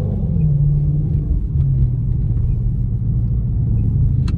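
2018 Dodge Charger R/T's 5.7-litre Hemi V8 running at a low, steady cruise, heard from inside the car; the engine note eases down slightly about a second in. A single sharp click near the end.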